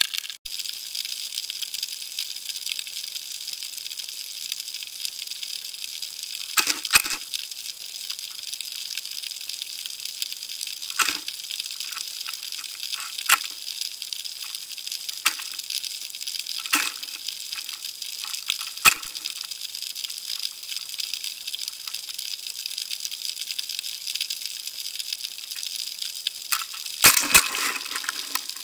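Underwater sound through a camera housing: a steady high hiss with scattered sharp clicks and knocks, and a denser cluster of clicks near the end.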